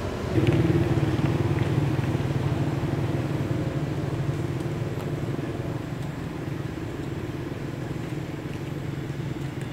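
A motor vehicle's engine running with a steady hum. It comes in suddenly about half a second in and slowly fades over the following seconds.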